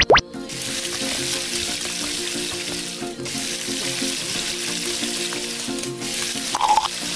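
Diced lean meat frying in hot oil in a wok: a loud, steady sizzle that dips briefly twice.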